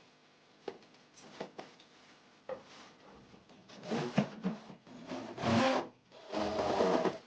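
Hand work on a hard surface: scattered light taps and knocks, then two longer rubbing strokes near the end.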